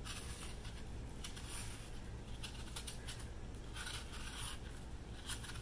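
A small blade peeling the skin off a crisp Honeycrisp apple, with faint scraping and slicing in short strokes, over a low steady hum.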